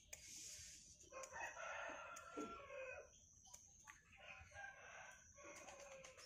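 A rooster crowing: one long crow starting about a second in, and a shorter call around four seconds in. A few faint clicks of scissors snipping bonsai shoots are heard between them.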